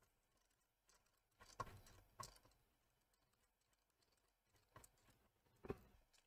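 Near silence with three faint, short clicks spread through it: a screwdriver working screws on a car amplifier's circuit board.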